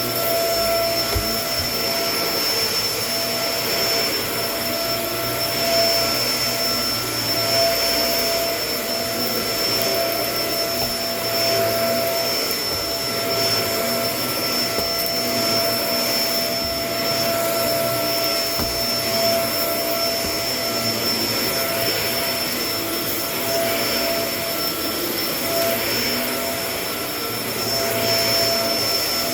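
Kenmore vacuum cleaner running: a steady motor whine over a constant rush of air, swelling and easing slightly as it is pushed along.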